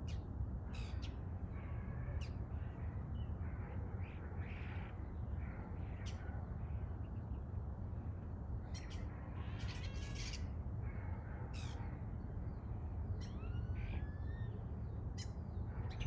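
Common starlings calling from a tree: scattered short harsh notes, clicks and whistles, busiest about two-thirds of the way through, with a rising whistle near the end, over a steady low rumble.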